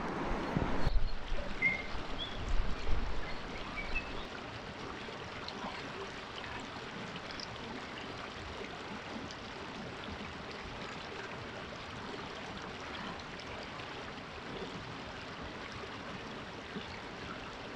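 Shallow, clear river flowing steadily over stones, an even rushing wash. A few low bumps in the first four seconds and a few faint bird chirps.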